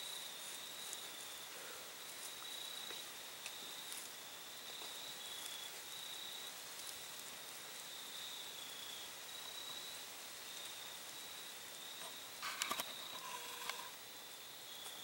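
Field insects trilling steadily at a high pitch in short runs. A brief cluster of clicks and rustles comes near the end.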